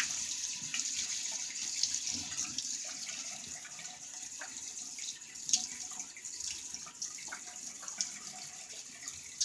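Tap water running into a sink as the face is wetted for a shave, a steady hiss with scattered splashes, the sharpest about halfway through.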